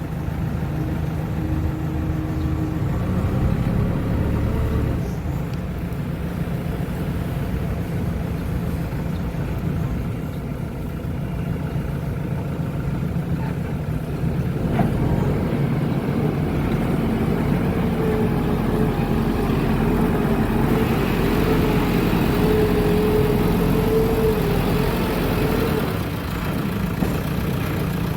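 Backhoe loader's diesel engine running steadily under operation, with a higher whine joining for several seconds about two-thirds of the way through.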